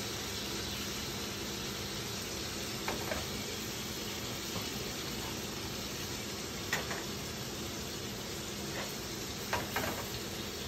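Chicken thighs frying in a pan with rice cooking wine, a steady sizzle. A few short sharp ticks come through about three, seven and ten seconds in.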